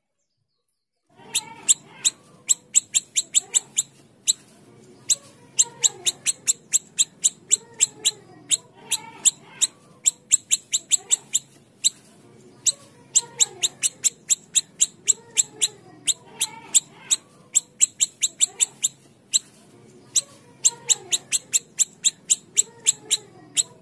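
Siri-siri kecil calling: a fast, steady run of sharp ticking notes, about four a second, over softer curving lower phrases that repeat every second or so. It starts about a second in, after a moment of silence.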